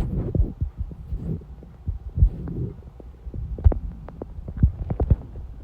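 Empty, hungry stomach growling and gurgling: low irregular rumbles broken by sharp pops and clicks, most of them in the second half.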